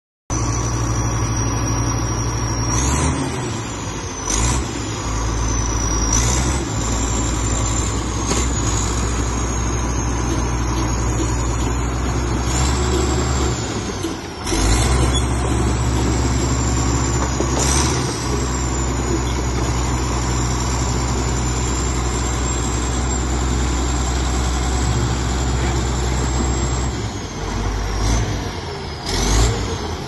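Komatsu D85ESS-2 crawler bulldozer's diesel engine running with a steady low drone. A high whine rises sharply and eases back several times as the engine is revved.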